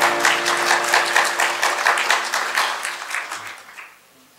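A congregation applauding, the clapping fading away near the end. The last held chord of the song's accompaniment dies out under it in the first second.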